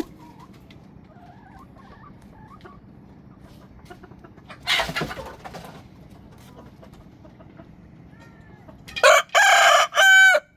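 Rooster crowing loudly near the end, a pitched call in several connected parts. Earlier, faint clucking and a short harsh burst about five seconds in.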